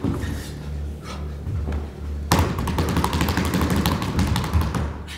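Barefoot dancers moving on a wooden studio floor: soft thuds and footfalls, then from about two seconds in a longer stretch of scuffing and rubbing with many small clicks, over a steady low hum.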